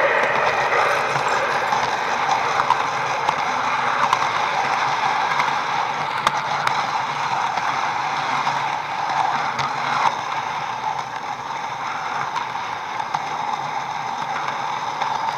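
HO-scale model train running along its track, heard close up from track level: a steady mechanical rattle and hum from the motor and wheels, with occasional sharp clicks.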